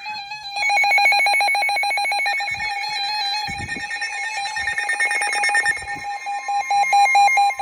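Several NOAA weather radios going off in alarm at once, rapid electronic beeping in overlapping patterns and pitches, signalling an incoming severe weather warning. Near the end a steady alert tone joins in, with a few low knocks.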